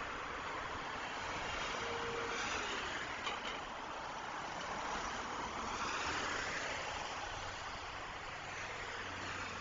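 Steady road traffic on a busy city highway: the tyre and engine noise of passing vehicles, swelling as cars go by about two seconds in and again around six seconds.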